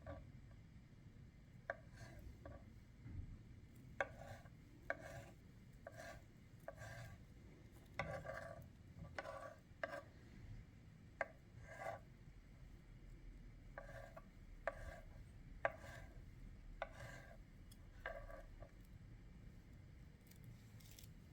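Knife cutting food on a cutting board: faint, irregular slicing strokes, roughly one or two a second, that stop a few seconds before the end.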